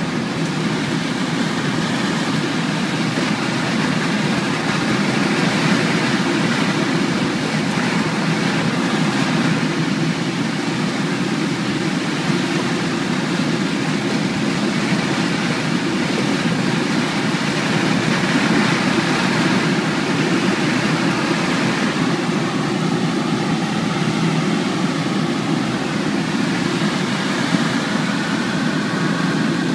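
Steady rush of air and rumble inside the cockpit of an SZD-50-3 Puchacz two-seat glider during its aerotow take-off and climb behind the tow plane.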